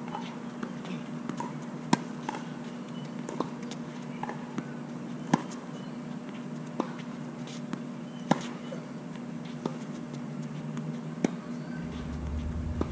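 Tennis rally: sharp pops of racket strings hitting the ball, the loudest about every three seconds from the near player, with fainter hits and bounces from the far end of the court in between. A steady low hum runs underneath, and a low rumble comes in near the end.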